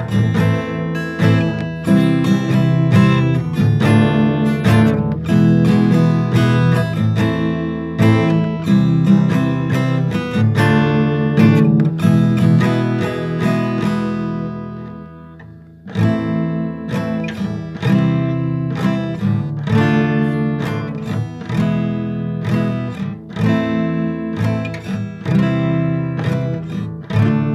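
Acoustic guitar playing an instrumental melody with plucked and strummed chords. About halfway through the phrase dies away almost to nothing, then the playing starts again.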